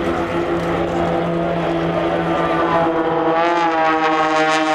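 Several Extra 300 aerobatic aircraft flying in formation, their piston engines and propellers making a steady drone. About three seconds in, one engine note rises in pitch and then slowly sinks as the aircraft pass.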